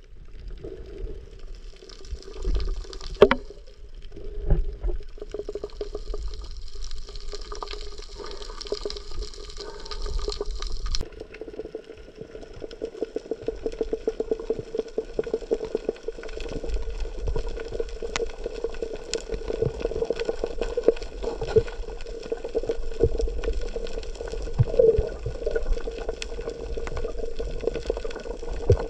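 Moving water close to the microphone, with a steady hum and dense fine crackling clicks that grow busier after about ten seconds.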